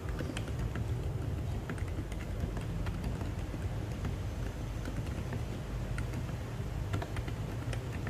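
Continuous typing on an NJ68 mechanical keyboard fitted with Boba U4 silent tactile switches and DSA keycaps: a run of small, irregular keystroke clicks over a steady low hum.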